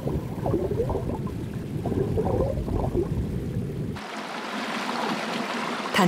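Low rumbling with faint wavering tones, then about four seconds in a sudden change to the steady rush of flowing stream water.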